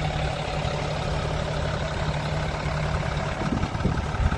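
Isuzu FRR110-260 truck's 260-horsepower diesel engine idling steadily with its power take-off engaged for the jetting pump. A few low knocks near the end.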